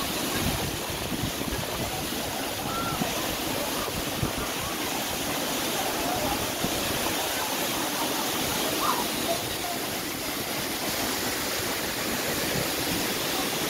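Steady rush of a waterfall pouring down a travertine cliff, with a few faint, brief high calls over it.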